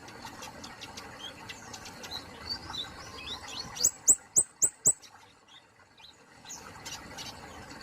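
Kemade polos bird singing: a run of quick, varied high chirps and twitters, then five loud, sharp, high falling notes in quick succession about four seconds in, followed by softer scattered chirps.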